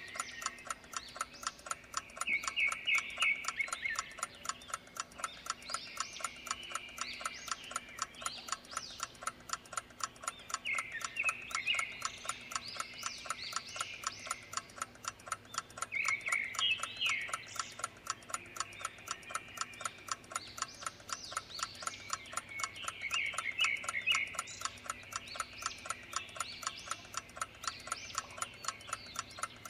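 A clock ticking steadily and evenly, with birds chirping over it in short trilled bursts every several seconds.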